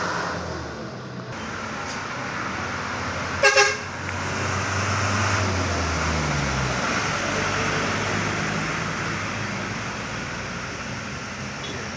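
A vehicle horn toots twice in quick succession about three and a half seconds in, over the steady running of a heavy vehicle's engine and tyre hiss on a wet road; the engine drone fades away about six and a half seconds in.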